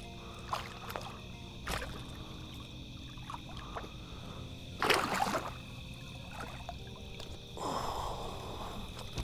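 A hooked channel catfish splashing at the water's surface as it is drawn to the bank, with a louder splash about five seconds in and more thrashing near the end. Crickets chirp steadily throughout.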